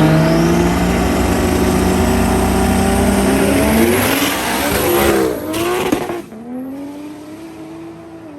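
Car engine revving loudly: the pitch holds high for a few seconds, rises and falls a few times, then drops away to a quieter, lower running note about six seconds in.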